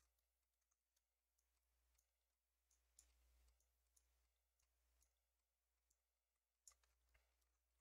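Faint computer mouse clicks at an irregular pace, about one or two a second, as vertices are picked one at a time.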